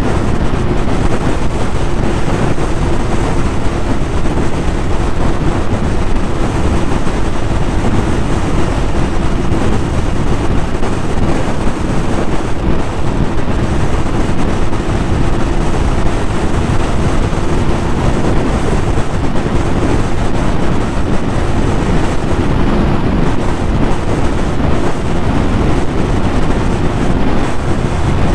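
Wind buffeting the microphone over the engine of a 2020 Yamaha YZF-R6 sport bike, its 600 cc inline-four running at a steady speed under way. The level stays even, with no revs rising or falling.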